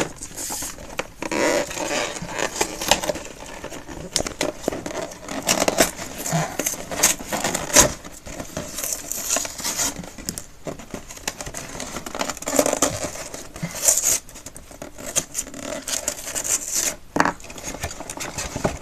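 Cardboard and plastic packaging of a Pokémon trading-card collection box being handled and opened: irregular rustling, crinkling and tearing with sharp clicks and taps.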